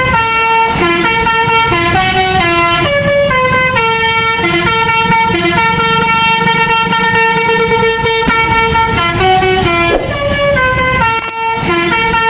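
Multi-tone 'telolet' bus air horn playing a stepping tune of short and held notes over a low engine rumble, with a brief break near the end.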